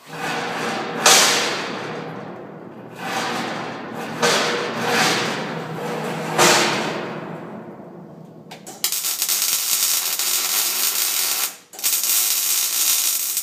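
A hand grinder worked against the steel gate in several surging passes, then a MIG welder's arc crackling steadily in two runs with a short break between them.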